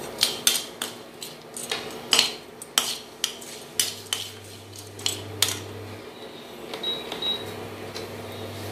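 A perforated steel ladle stirring whole spices in hot oil in a stainless steel kadai, clinking and scraping against the pan in irregular strokes that thin out after about five seconds. Under it, an induction cooktop hums low; the hum stops briefly about six seconds in, then comes back.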